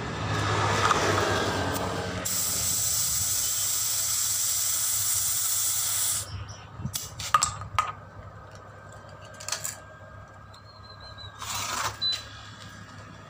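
Compressed air hissing through an air hose and pressure-gauge chuck into a motorcycle tyre's valve. The hiss runs for about four seconds, then cuts off suddenly. After it come a few light clicks and a short burst of air hiss near the end.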